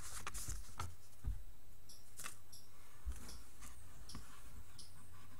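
Handling noise: scattered light paper rustles and small clicks and taps as a folded instruction leaflet and a plastic DT-830D digital multimeter are moved about by hand, over a steady low hum.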